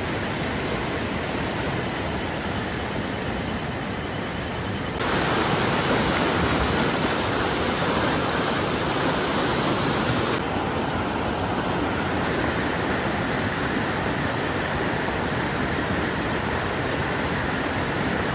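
Whitewater rapids of a rocky mountain river rushing steadily, a constant hiss of water across all pitches. It gets louder about five seconds in.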